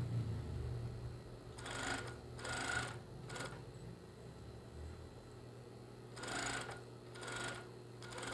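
Industrial coverstitch machine stitching in several short bursts, three in quick succession and then three more a few seconds later, over the steady low hum of its motor. The waistband elastic of a pair of shorts is being topstitched down.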